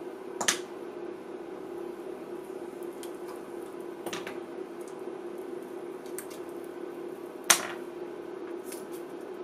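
A few sharp clicks, the loudest near the end, over a steady hum, as pieces of lead-free solder are dropped into a hot solder pot.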